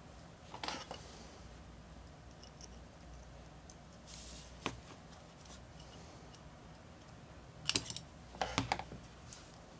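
Small hard parts clicking and scraping as they are handled and a hex driver is worked into a small part: a brief rattle about half a second in, one sharp click near the middle, and a quick cluster of clicks near the end.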